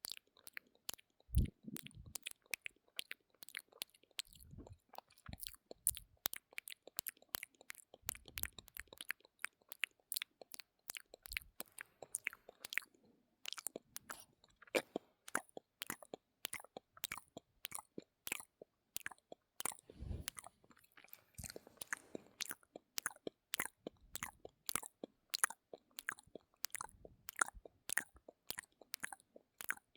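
ASMR mouth sounds close to the microphone: wet clicks and smacks of tongue and lips, about two a second, with a few low thumps.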